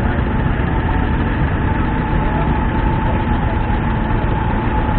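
Antique farm tractor engines running at low speed, a steady low engine noise, with a faint steady high-pitched tone over it.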